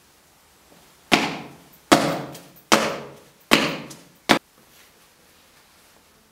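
Five loud heavy bangs, evenly spaced a little under a second apart, each ringing out in a long echoing tail; the fifth is shorter and sharper.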